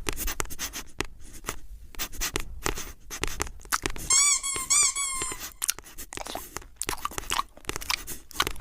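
Cartoon sound effects: a rapid, irregular run of crunching, chewing-like clicks, with a short series of squeaky chirps about four seconds in.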